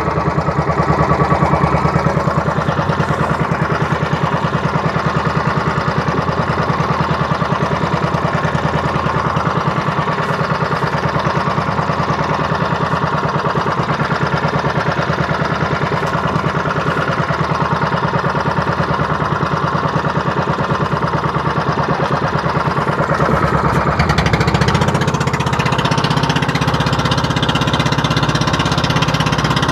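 Small outrigger boat's engine running steadily with a fast, even chugging beat. About three-quarters of the way through it gets deeper and a little louder.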